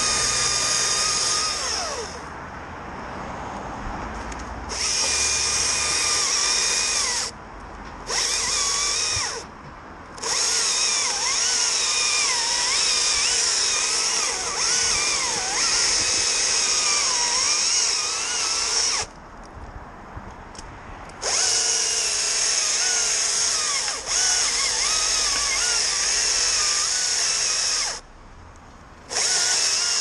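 Chainsaw run at full throttle in about six long bursts, its pitch wavering under the load of cutting, dropping back to a lower, quieter running in short gaps between cuts.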